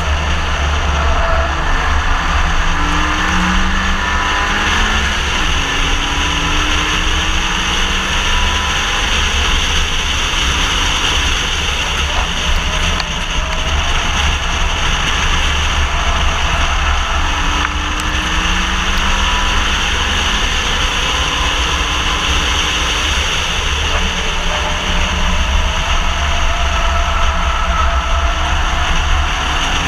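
Renault Mégane RS driven hard, heard from a camera mounted outside the body beside the front tyre: a heavy, constant wind rumble and road noise, with the turbocharged four-cylinder engine's pitch climbing several times as the car accelerates.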